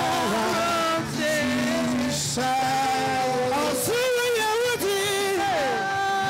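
A man singing a gospel worship song into a microphone over sustained instrumental accompaniment. He holds long notes with a wavering vibrato and slides down in pitch on a note near the end.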